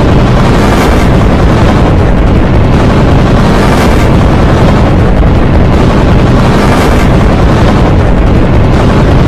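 Extremely loud, heavily distorted and clipped remix audio built from a Halloween animatronic's sounds: a dense, steady wall of noise with no clear tones, with faint surges about every three seconds.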